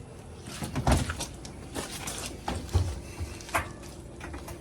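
Several knocks and clunks from a Whirlpool dryer's door and cabinet being handled, sharpest about a second in and again near three seconds.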